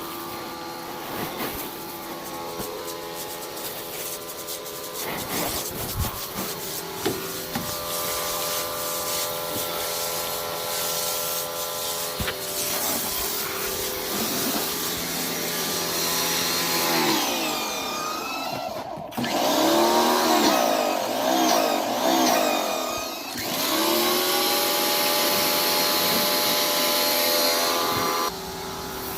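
Greenworks 2000 psi electric pressure washer running, its motor humming steadily under the hiss of the water jet. Past the middle the sound gets louder and sweeps up and down in pitch as the spray moves across the truck body, then it drops off sharply shortly before the end.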